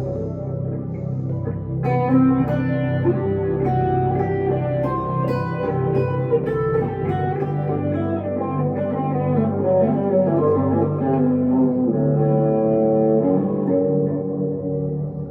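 Electric guitar, a 1962 Gibson Les Paul Custom through a Two-Rock Emerald Pro tube amplifier, playing a slow melodic lead line with notes ringing on into one another.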